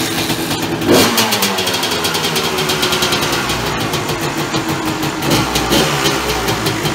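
Kawasaki KX250's single-cylinder two-stroke engine catching on the kickstart and running for the first time after a rebuild. It is revved about a second in, then settles to a fast, uneven run with smaller throttle blips.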